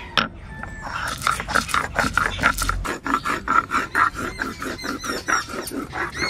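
Whole coriander seeds being crushed on a shil-nora, a flat grinding stone worked with a hand-held stone, after a single knock just after the start. From about a second in, the hand stone rocks back and forth over the seeds in quick, even crunching strokes, about five a second.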